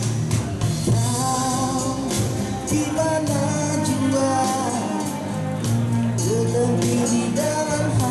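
A live band plays a pop song through PA speakers while a male singer sings the melody into a microphone, backed by percussion.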